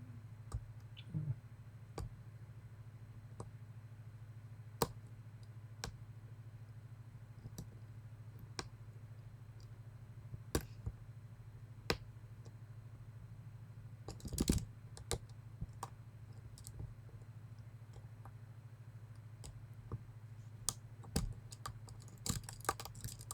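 Sharp, irregular clicks of a lock pick tapping the key pins of a Medeco lock held under sidebar tension: the pins bounce freely and click, the sign that their rotations are set correctly. The clicks come singly, with a quick cluster about two-thirds of the way in and more near the end, over a steady low hum.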